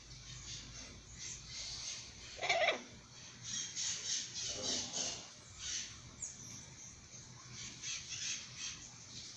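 Parrot squawking once loudly about two and a half seconds in, then giving a softer, lower call about two seconds later, amid runs of short scratchy high-pitched noises.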